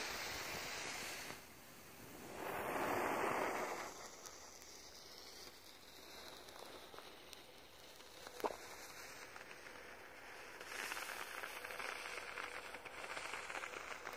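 Weco gold rain firework fountain burning and spraying sparks with a soft hiss and crackle. It swells about two to four seconds in and again from about eleven seconds on, and one sharp click comes about eight and a half seconds in.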